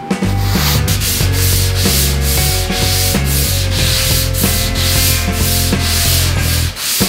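Sanding block rubbed back and forth by hand over a foam surfboard blank in quick, even strokes, each stroke a short scratchy hiss.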